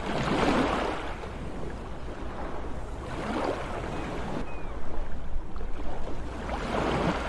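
Sea waves washing in, surging and easing about every three seconds, over a steady low rumble.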